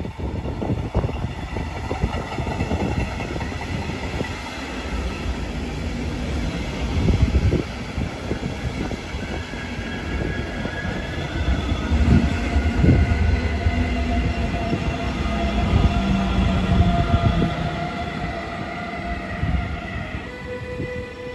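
Double-deck regional push-pull train passing, a continuous rumble of wheels on rail with a few clacks over rail joints. A steady electric whine comes in during the second half as the pushing electric locomotive goes by.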